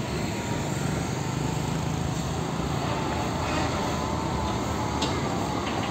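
Hino fuel tanker truck's diesel engine running as the truck drives past, over steady road and traffic noise.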